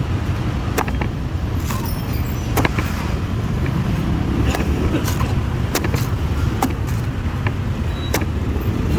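Sharp knife chops into a green coconut, a knock about every second, over a steady low rumble of passing road traffic.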